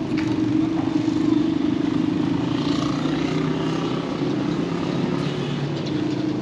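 A motor engine running steadily, an even drone with no strikes or breaks.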